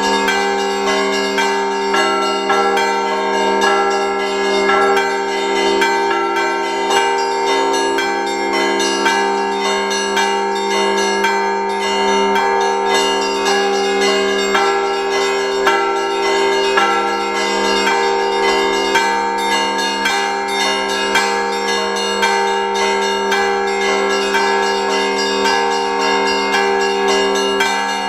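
Russian Orthodox church bells rung by hand from the belfry: several bells sound together, with smaller bells struck in quick, continuous rhythmic patterns over the long-ringing hum of the larger bells.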